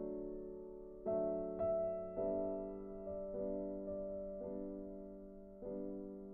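Soft background piano music: slow sustained chords, each struck and left to fade, a new chord about every second.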